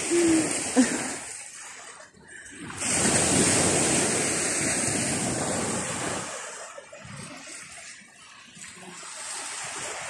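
Baltic Sea waves breaking and washing up on a sandy beach: a steady rush of surf that swells suddenly about three seconds in, fades away, and builds again near the end.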